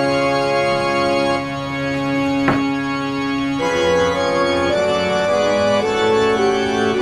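Slow organ music: long held chords that change only every second or few.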